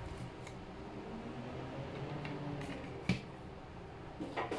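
Light clicks from handling a lightweight plastic phone tripod over a steady low hum: one sharp click about three seconds in and a quick run of clicks near the end.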